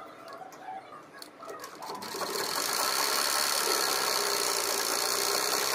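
Sewing machine stitching. A few faint clicks come first, then about two seconds in the machine starts up and runs at a steady speed.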